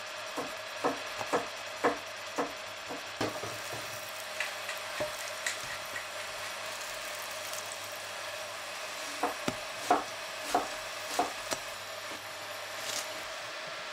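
Butter sizzling steadily in a frying pan with slices of bread frying in it, with sharp clicks and taps of metal tongs: a quick run of them, about two a second, early on and a handful more later.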